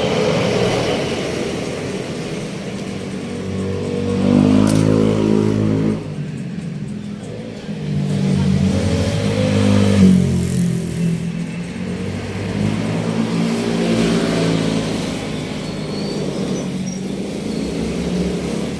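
Vehicle engines revving up and dropping back several times, rising and falling in pitch.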